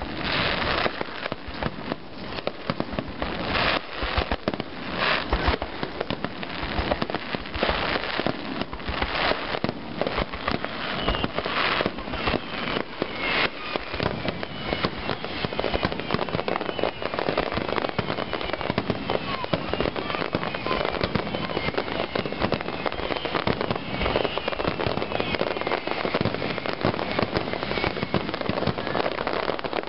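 Continuous fireworks display: aerial shells bursting in rapid succession, the bangs running into dense crackling, with thin whistles through the middle stretch.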